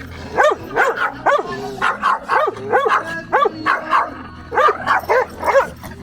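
Dog barking repeatedly in short, high barks, about two a second.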